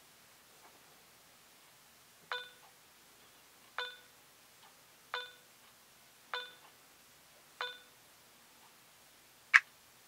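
BlackVue Sport SC500 action camera beeping: five short identical beeps about a second and a half apart as it switches modes, then a single higher, louder beep near the end as it starts recording.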